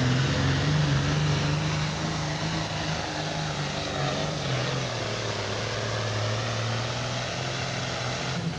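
Heavy diesel super stock pulling tractor's engine running hard under load on a pull. Its pitch drops a little about three seconds in, then holds steady as it gradually gets quieter.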